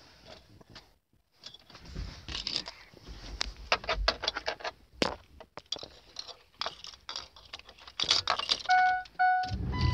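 A ring of keys jangling and clicking as they are handled and put into a Ford F-250's ignition. Near the end a dashboard warning chime beeps twice, and a low steady rumble then starts as the truck's engine comes on.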